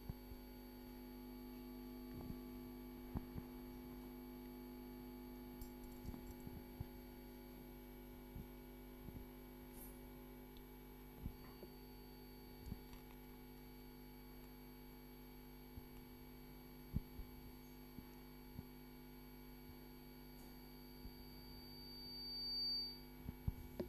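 Steady electrical mains hum made of several steady tones, with scattered faint short clicks throughout and a brief swell in level near the end.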